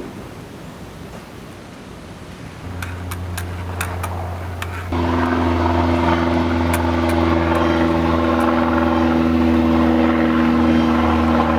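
An engine starts as a low hum a few seconds in, then steps up suddenly to a loud, steady drone with several held tones. A few sharp clicks come just before the step.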